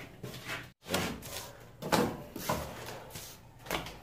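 Wet cement mortar being pushed and scraped into a hole in a concrete block wall, with a few short scrapes and knocks.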